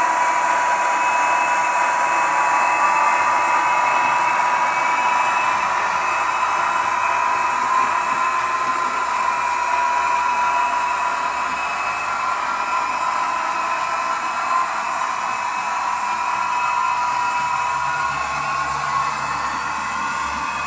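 Sound decoder in a TT-scale class 754 diesel locomotive model playing the diesel engine's running sound through its small speaker as the model drives along, a steady whirring hum with a high steady whine that drops out near the end.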